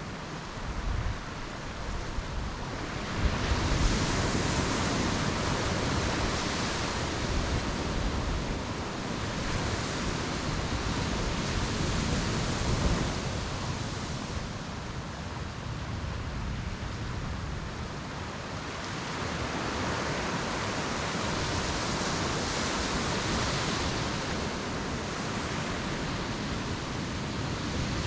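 Ocean surf washing onto a beach: a steady rushing of breaking waves that swells and fades in slow surges every several seconds.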